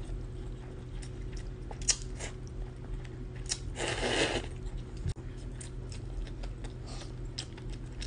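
Slurping and chewing cold wheat noodles, with one longer, louder slurp about four seconds in and small wet chewing clicks around it.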